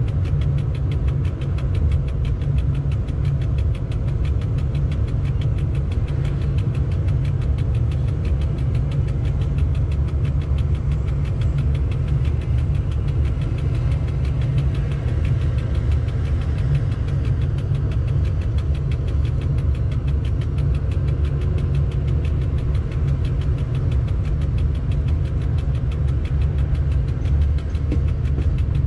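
Steady low rumble inside the cab of an electric freight locomotive rolling slowly through a yard, without change in level.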